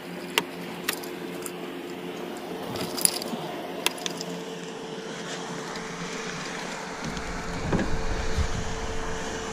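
Boat's outboard motor running steadily at low trolling speed, with a few sharp clicks in the first four seconds. A low rumble grows from about seven seconds in.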